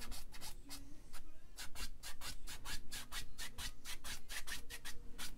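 A paintbrush scrubbing oil paint onto a stretched canvas in quick, short back-and-forth strokes, several a second, with a brief pause about a second in.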